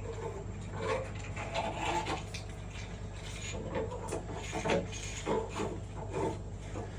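Irregular scraping and light knocking of hard objects being shifted and rubbed around a fridge, over a steady low hum.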